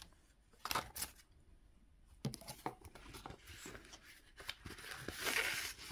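Paper banknotes and a cash envelope handled by hand: a few soft taps and paper rustles, then a longer rustle of paper about five seconds in.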